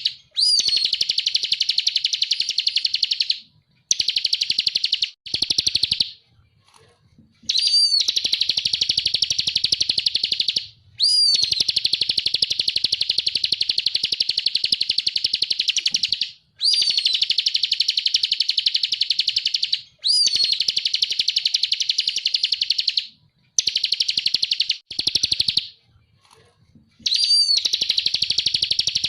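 Bar-winged prinia (ciblek kristal) singing hard: long runs of a very fast, high-pitched chattering trill, each opening with a short swooping note, broken by brief pauses of about a second.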